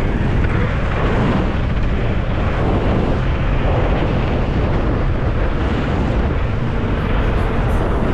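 Loud, steady wind buffeting on the microphone from riding a Nami Burn-E electric scooter at speed.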